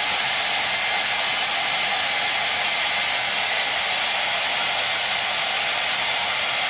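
Handheld hair dryer running steadily: a constant airy rush with a faint high whine.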